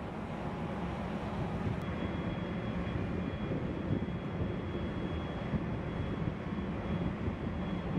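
Steady low rumble of a harbor tug's diesel engines running, with a faint thin high whine that comes in about two seconds in.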